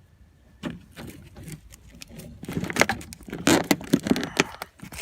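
Rapid clicking, tapping and scraping as a factory door speaker is worked loose from the little clip holding it, quiet at first, then a busy run of sharp clicks from about halfway through.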